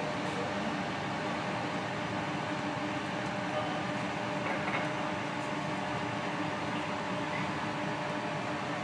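Steady hum and rush of a laminar flow cabinet's blower fan, with a few faint clicks.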